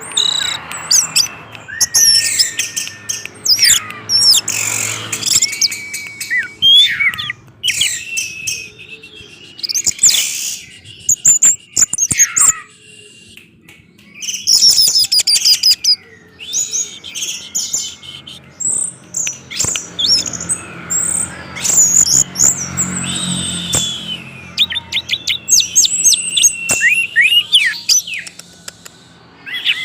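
Orange-headed thrush singing a continuous, varied song of quick whistled phrases, chirps and rapid note strings, with a brief lull just before halfway.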